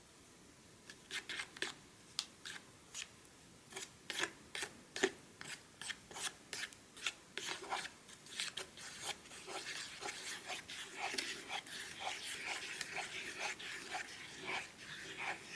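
A small plastic spoon stirring and scraping in the plastic tray of a Popin Cookin kit, mixing powder and water. It starts as irregular clicks and scrapes, then turns into faster, continuous scraping from about two-thirds of the way in.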